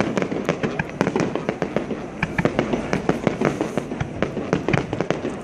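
Fireworks display: a rapid, dense series of bangs and crackling pops going off several times a second without a break.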